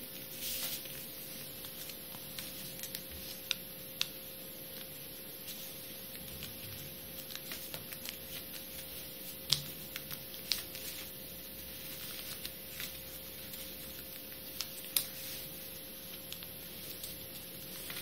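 Small square of origami paper being folded and creased by hand: soft rustling with scattered sharp clicks and taps as fingers press the folds down, a handful of them louder. A steady hum runs underneath.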